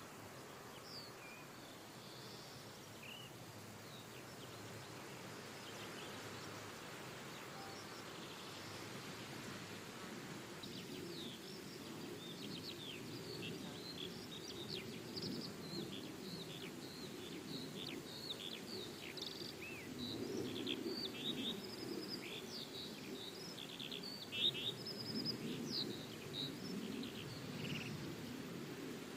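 Outdoor ambience of many small birds chirping in quick, short calls, sparse at first and busy from about a third of the way in. Beneath them runs a low rumble that swells in the second half, with one brief louder bump near the end.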